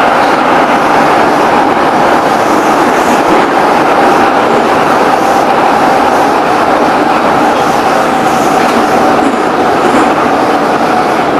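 Moscow Metro Ezh-3/Em-508T (81-710/712/508T) train running at speed between stations, heard from inside the car: a loud, steady running noise with a steady whine.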